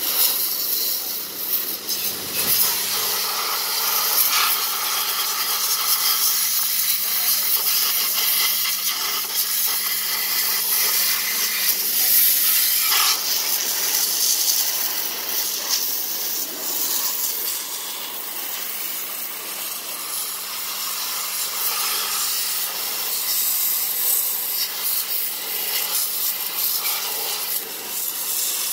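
High-pressure water jet hissing as it blasts caked mud off a Kubota walk-behind tractor's engine and frame, the spray spattering on the metal, over a steady low hum.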